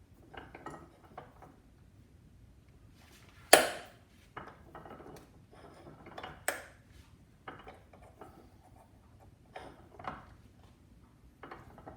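Small hard clicks, taps and knocks of a single-coil guitar pickup bobbin being pressed together by hand with plexiglass spacers. There is a sharp knock about three and a half seconds in and a lighter one about three seconds later.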